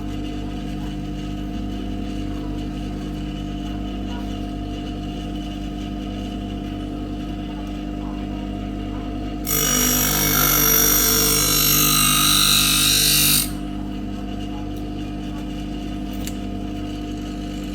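Electric scissors and knife sharpening machine running with a steady hum. About halfway through, a blade is held against the grinding wheel for about four seconds, giving a loud, high grinding hiss that stops abruptly, and the motor runs on alone.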